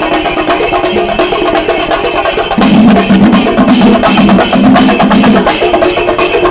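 Chenda melam, the Kerala temple-festival percussion ensemble, playing a fast, dense rhythm of drum strokes, very loud, swelling louder about two and a half seconds in.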